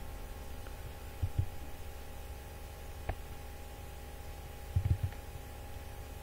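Steady low hum with a faint thin tone above it, the background noise of the recording. A few soft low thumps come about a second in and again near five seconds, and a single short click comes at about three seconds.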